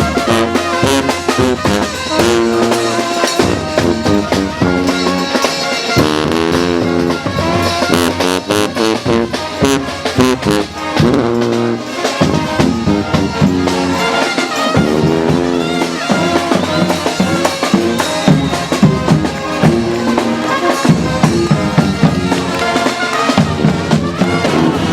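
Street brass band playing as it marches: horns over drums.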